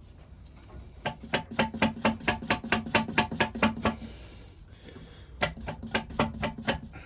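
Rubber hammer rapidly knocking the end of the oil pump shaft of a 1921 Lister TM stationary engine to drive it out of its tight gear. It is a quick run of blows, about six a second, for some three seconds, then a shorter run after a pause, with a low ringing note under the strikes.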